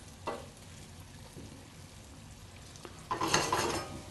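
Sliced onions sautéing in a frying pan on a gas burner, a low steady sizzle with a light tap of the wooden spatula just after the start. Near the end, a louder, brief rush as the pan is lifted and tossed and the onions slide across it.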